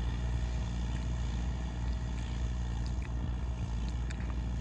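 New Holland 3630 tractor's engine running steadily under load as it pulls a tiller through the field: an even, low hum.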